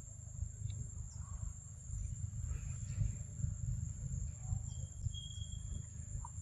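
Forest ambience of insects: a steady high buzz with a rapidly pulsing chirp above it, over a low rumble. A short high note sounds about five seconds in.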